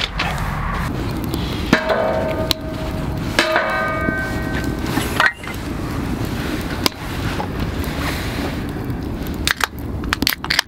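Two metallic clangs about a second and a half apart, each ringing on for about a second like knocked metal camp gear, over the steady rush of a wood fire burning in a metal stove. A quick run of sharp crackles near the end.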